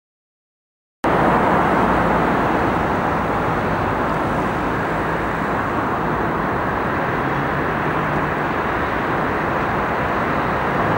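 Steady road traffic noise from a busy multi-lane city avenue: a continuous wash of car engines and tyres, starting abruptly about a second in.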